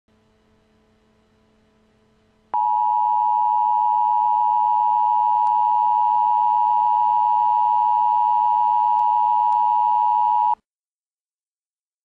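Emergency Alert System attention signal: two steady tones sounding together, just under 1 kHz, starting suddenly about two and a half seconds in and held for about eight seconds before cutting off abruptly. A faint low hum comes before it.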